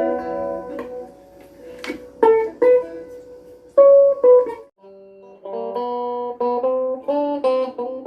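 Guitar played note by note: single plucked notes and short phrases with brief pauses, settling into a steadier melodic run of notes about halfway through.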